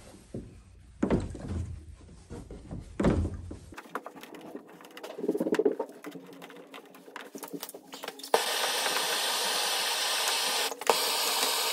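Gloved hands knocking and handling metal pipework, then about eight seconds in a handheld gas torch starts and its flame hisses steadily as it heats the water pipe, with a brief click near the end.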